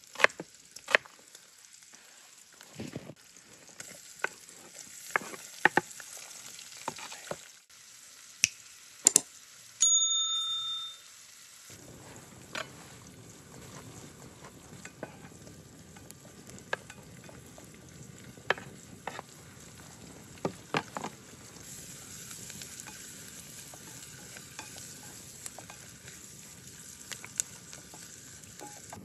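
Food sizzling in a pot over an open fire, with sharp clicks and crackles throughout. About ten seconds in comes a brief ringing metallic clink. From about twelve seconds on there is a steadier hiss.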